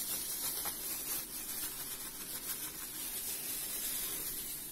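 Thin plastic bag rustling and crinkling in the hands as minced horseradish is squeezed out of it into a pot.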